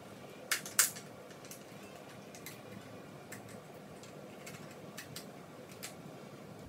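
Plastic clicks and ticks from fitting a 9-volt block battery into the battery compartment of a handheld insect and spider vacuum. Two sharp clicks come about half a second in, followed by scattered lighter ticks as the battery and cover are worked into place.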